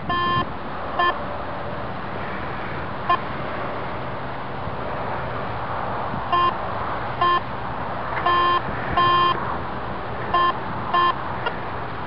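Garrett Ace 250 metal detector beeping as its search coil is swept over the ground: about ten short beeps of the same tone at irregular intervals, some clipped and some held a little longer, each one the detector signalling metal under the coil.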